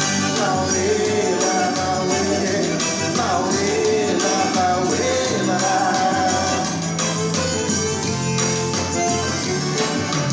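A forró band playing the instrumental intro of a song, with the zabumba drum and the triangle keeping a steady dance beat under a melody line.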